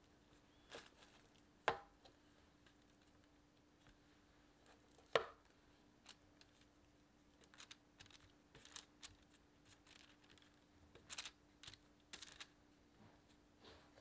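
Heavy balls of cookie dough set down on a parchment-lined metal baking tray: two dull knocks, a few seconds apart, then light taps and rustles of the parchment and gloved hand as more balls are placed. A faint steady hum sits underneath.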